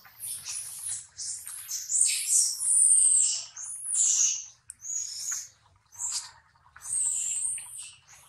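Baby long-tailed macaque crying in a string of high-pitched squeals, several falling in pitch, with short gaps between them.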